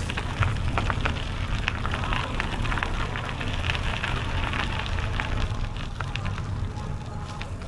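Bicycle tyres rolling over a gravel path, a dense irregular crackling and crunching over a steady low rumble of wind on the microphone.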